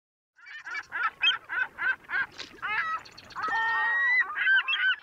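Geese honking: about four short calls a second, then a longer held call about three and a half seconds in, then a thick run of overlapping calls. The sound starts abruptly after silence.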